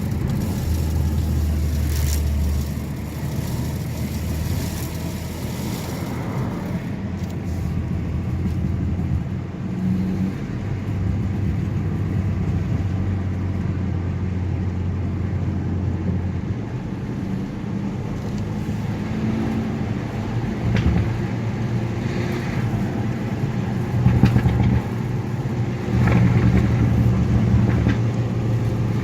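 Car being driven, with a steady low rumble from the road and running gear and a few short knocks from the chassis: one about two seconds in, and two more near the end. The knocks are the abnormal underbody noise being recorded.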